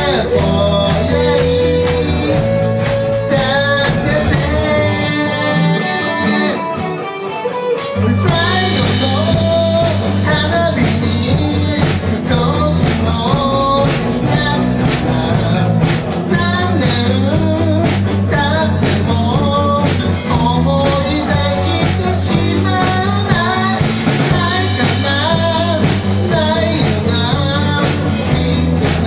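Live band playing: a man singing over acoustic and electric guitars and a drum kit. About five seconds in the low end and drums drop out briefly, and the full band comes back in about three seconds later.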